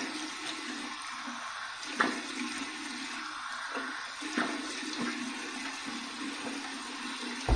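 Cold water running steadily from a bathroom tap into the sink, with three splashes as handfuls of water are thrown onto the face for a cold rinse after shaving.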